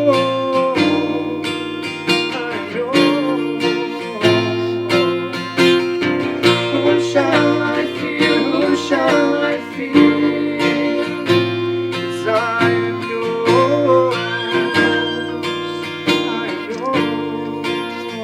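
Acoustic guitar music, strummed and picked chords, with a melody line that slides and bends above them.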